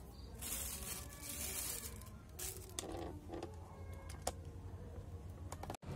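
Soft rustling with a few light clicks and taps, from handling of the plastic-wrapped air layer and the leafy bougainville stems around it.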